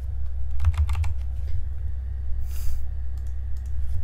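Computer keyboard keys clicking in a short run about a second in, over a steady low electrical hum, with a brief hiss about two and a half seconds in.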